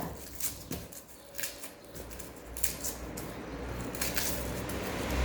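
Garlic cloves being pulled and snapped off a garlic head by hand, the papery skins crackling in a series of short, sharp clicks. A low rumble builds in the second half.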